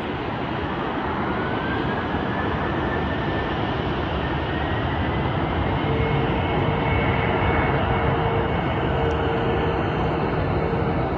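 Jet aircraft engines running with a steady rush that swells gradually. A thin whine rises in pitch over the first few seconds, and a lower steady tone joins about halfway through.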